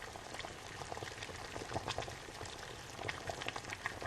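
Water boiling: a steady bubbling hiss dotted with many small pops.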